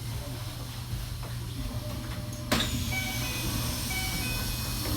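Inside a Keikyu train at rest over a steady low hum, a sudden burst of air hiss about halfway through as the pneumatic doors release, followed by a few short repeating beeps.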